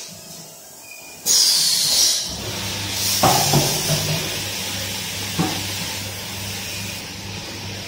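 Automatic outer brushing machine for 5-gallon water bottles starting up. A loud spray hiss begins suddenly about a second in, and a steady motor hum joins shortly after. Two knocks sound as it runs.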